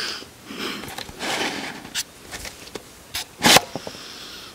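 Frustrated, breathy huffs close to the microphone, mixed with a few knocks and rubs from the handheld camera being moved. The loudest knock comes about three and a half seconds in.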